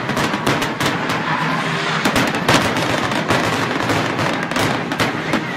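Aerial fireworks shells bursting in a rapid barrage: dense, irregular bangs and crackles several times a second, with a few heavier bangs standing out.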